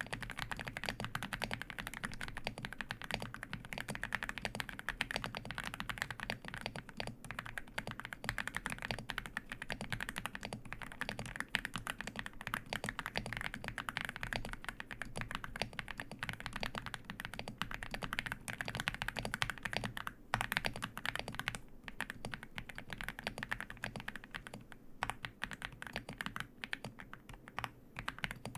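Typing on an Aula F75 mechanical keyboard fitted with hand-lubed Leobog Reaper linear switches: a dense, fast run of keystrokes that thins out to scattered presses in the last few seconds.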